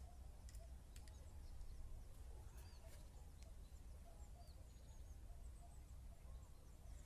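Near silence: a faint low wind rumble, with a few faint, high bird chirps scattered through it.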